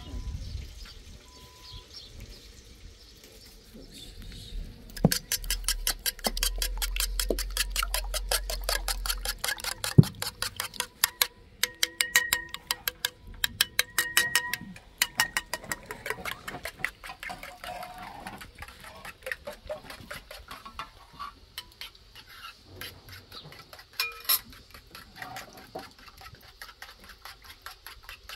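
Raw eggs being beaten with a metal spoon in a metal bowl: fast, even clinking of the spoon against the bowl that starts a few seconds in and eases off to scattered clinks past the middle.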